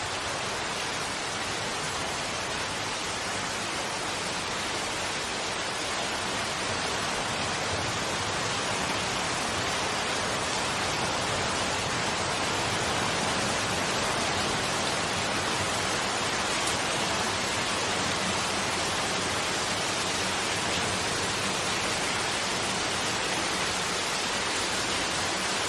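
Steady rain falling in a forest, an even hiss that grows a little louder partway through.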